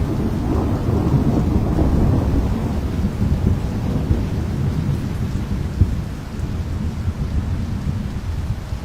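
Monsoon storm noise: a continuous low rumble with rain, easing a little near the end.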